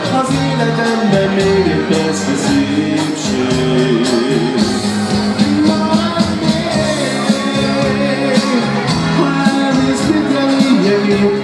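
Live dance band playing a song with singing, electric guitar and bass guitar over a steady beat.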